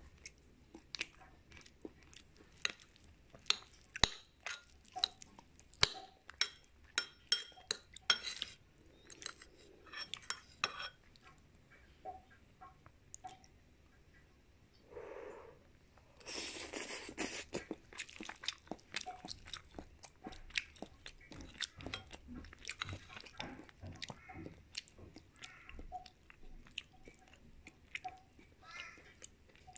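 Close-miked chewing of a chicken-and-tofu dish: a run of sharp crunchy clicks for the first ten seconds or so, a short noisy rush about sixteen seconds in, then softer chewing.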